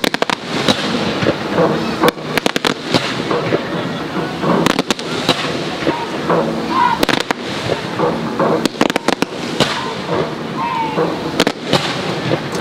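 Aerial fireworks going off, a string of sharp bangs and crackles coming in clusters every second or two.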